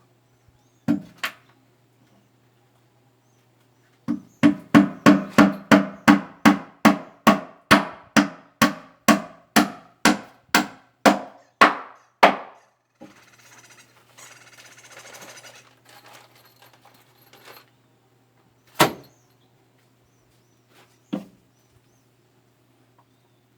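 Hammer nailing wooden boards: a quick, even run of about twenty blows, then two single blows a while later.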